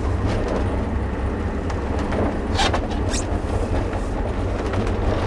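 Steady low rumble of a car driving, heard from inside the cabin, with a couple of brief clicks about two and a half and three seconds in.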